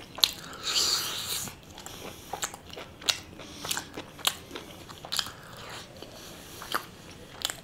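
A person eating close to the microphone: chewing with crisp crunches and many sharp, short mouth clicks. The loudest crunching comes about a second in.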